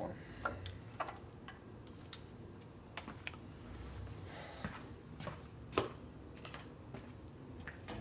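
Scattered light clicks and taps of small hand tools and parts being handled, about a dozen short ones spread unevenly, the loudest a little past the middle.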